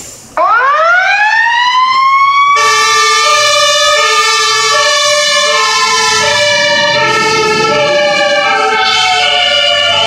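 Fire engine sirens on an emergency run. A wailing siren winds up steeply from about a third of a second in, then slowly sinks in pitch. From about two and a half seconds in, a second siren joins it, alternating between a high and a low tone.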